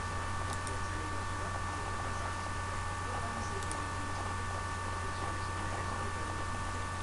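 Steady electrical hum and hiss with a few thin, high, steady whining tones over it, unchanging throughout, with a couple of faint ticks.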